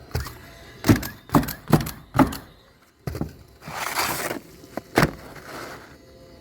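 Nails being driven into asphalt roofing shingles: a quick run of about five sharp knocks, then two more spaced out, with a short scraping rustle of a shingle being handled between them.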